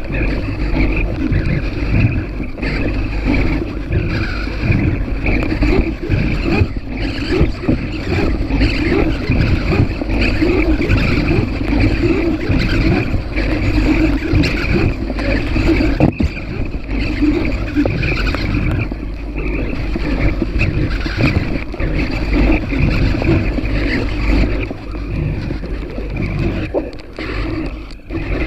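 Motor and propeller of an FPV model aircraft running steadily in flight, with wind rushing over the onboard microphone.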